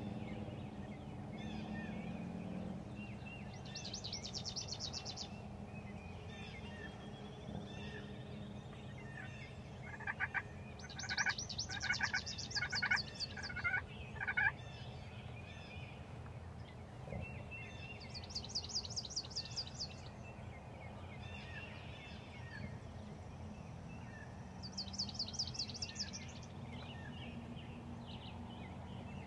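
A run of about six turkey yelps in the middle, the loudest sound, with a small songbird singing short high trills several times.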